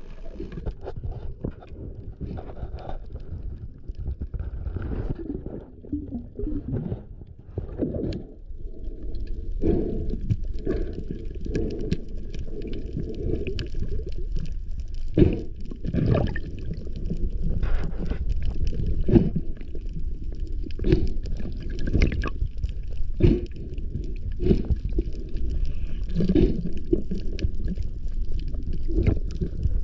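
Underwater sound through an action camera's housing: a steady low rumble with frequent sharp knocks and clicks.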